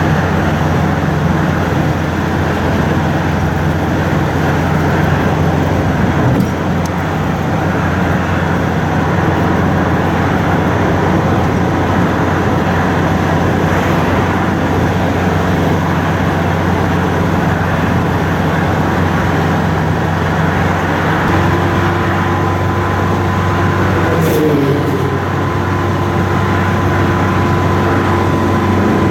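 Motor vehicle engine running steadily with road noise while driving. Its engine note shifts about two-thirds of the way through, and a brief falling tone follows.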